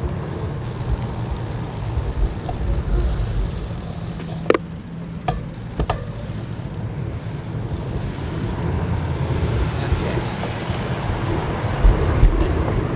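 Wind on the microphone and road noise while riding a bicycle. A few sharp clicks come about four and a half to six seconds in.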